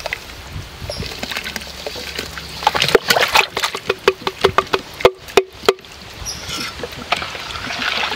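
A steel spoon stirring grape juice in a steel pot, knocking against the pot with ringing clinks, about four a second for some three seconds in the middle; softer sloshing of the liquid before and after.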